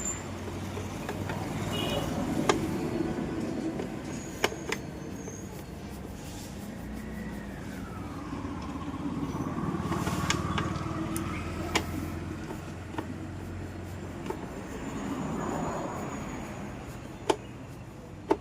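Sharp clicks and knocks, about seven of them spread through the stretch, as screws are taken out of a mixer grinder's plastic base and its back cover is worked loose, over a steady low background rumble.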